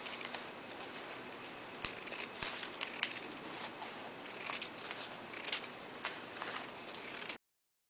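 Scissors snipping lengthwise through a narrow paper strip: a run of small, irregular snips and paper rustles. The sound cuts off suddenly near the end.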